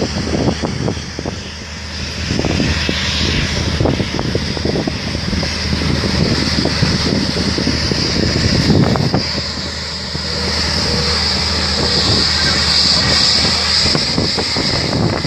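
Embraer E195 jet's turbofan engines running steadily with a high whine, over a low hum and irregular low gusty rumble on the microphone.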